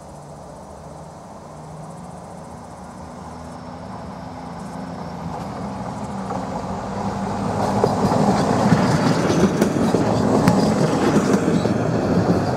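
Stadler Regio-Shuttle diesel railcar approaching and passing. Its engine hum grows steadily louder and is loudest from about eight seconds in as it goes by, with wheels clicking over the rail joints.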